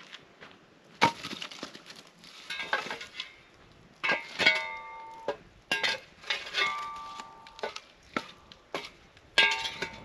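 Split firewood knocking down into a campfire pit, then a long-handled metal-headed tool jabbing and scraping among the wood and the stone fire ring: a run of wooden knocks and metal clanks, several leaving a brief ringing.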